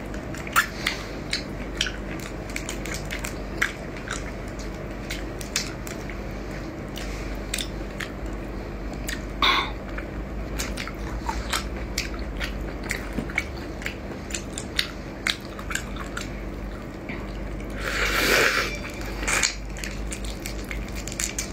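Close-miked eating of chili-marinated shrimp: steady chewing with many small crunches and wet mouth clicks as the shells are bitten. A longer noisy sound comes about nine seconds in, and a louder, longer one near eighteen seconds.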